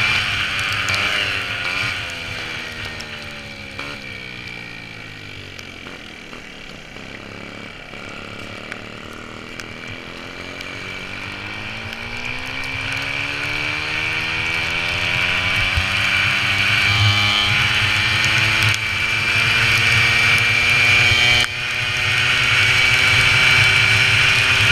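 Racing VéloSolex's small two-stroke engine running at speed, its pitch falling over the first several seconds as it slows, then climbing steadily back up as it picks up speed again. A steady high whine runs alongside.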